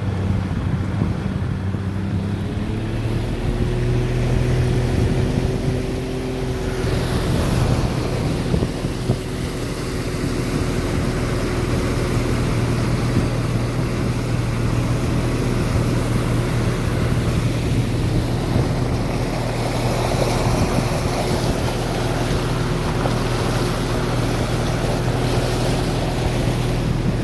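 Fishing boat's engine running under way. It picks up speed about two to three seconds in, then holds steady, over water rushing past the hull and wind on the microphone.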